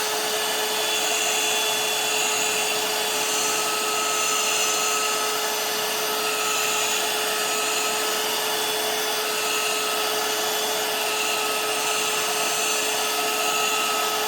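Ungar heat gun on its high setting, its fan blowing with a steady whoosh and a constant hum, held over a transmission control module to reflow the solder joints.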